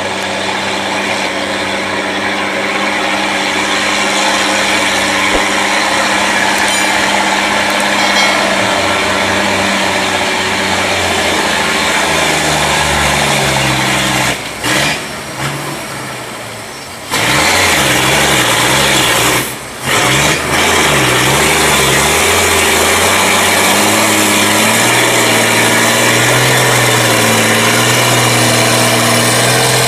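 Diesel engine of a heavily loaded three-axle Hino log truck pulling up a dirt road and passing close. The engine note drops away briefly twice about halfway through, then runs on steadily.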